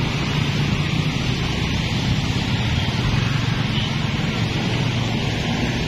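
A dense stream of motorcycles and scooters riding past, a steady mix of many engines running and road noise.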